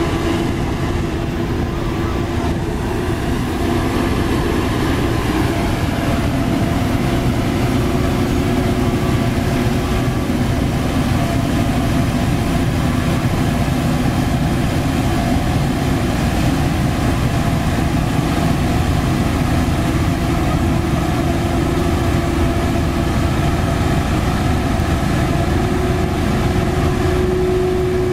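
Hamm 3410 padfoot single-drum roller's diesel engine running steadily under load as the roller drives up steel ramps onto a truck bed, a constant drone with a steady whine over it.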